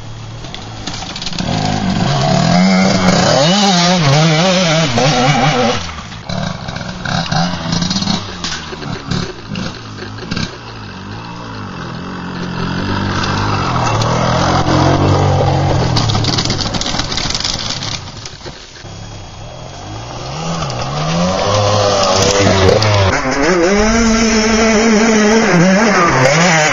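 TM 80 two-stroke dirt bike engine revving up and down as it is ridden, its pitch rising and falling with the throttle, easing off briefly about six seconds in and again about two-thirds of the way through.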